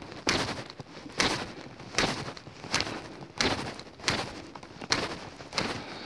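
A knife blade scraping down a ferrocerium rod (fire steel) in about eight quick strokes, a little more than one a second, each strike throwing sparks onto bark tinder that does not catch.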